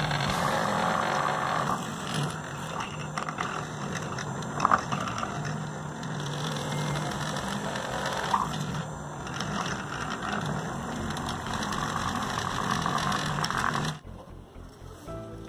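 Electric drill running as it bores a hole through a plastic PVC end cap, with a couple of brief louder catches of the bit. The drilling cuts off about a second before the end.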